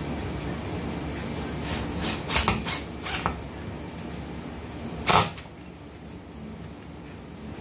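Cordless drill driving wood screws through a metal bracket into a pine board, with knocks of the bracket and drill against the board. The loudest knock comes about five seconds in, and a low running hum stops just after it.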